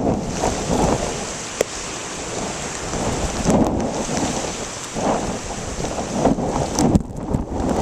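Gusty nor'easter wind buffeting the microphone over a steady hiss of rain, swelling several times. A single sharp click comes about a second and a half in.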